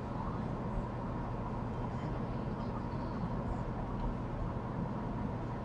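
Steady background hum and hiss with no distinct events: a low hum with a faint steady tone above it.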